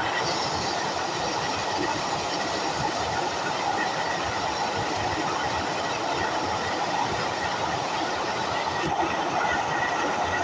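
Waterfall: water falling and rushing in a steady, unbroken noise.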